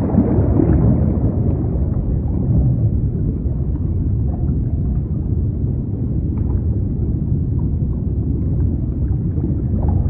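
Sea-noise recording used as sleep white noise: a steady, dull wash of the sea, heavy in the low end, swelling slightly near the start, with faint small splashy ticks here and there.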